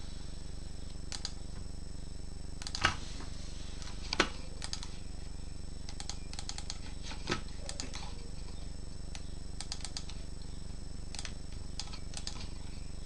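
Clicks of computer keys and mouse buttons in short, irregular runs, with two louder knocks about three and four seconds in, over a steady low electrical hum.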